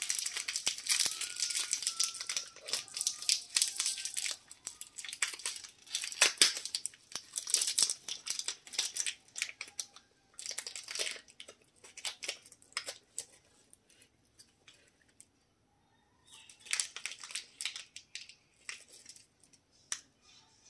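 Clear cellophane wrappers on rose-shaped lollipops crinkling as fingers work them loose and pull them off. The crackling is dense for the first nine seconds or so, then comes in shorter bursts, with a pause of about two seconds past the middle.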